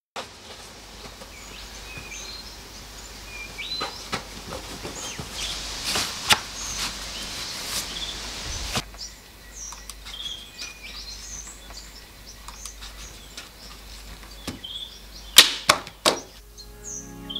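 Wooden canvas stretcher bars being knocked into place: sharp wooden knocks, a few spread through the middle and three loud ones in quick succession near the end. Birds chirp now and then over a steady outdoor hiss.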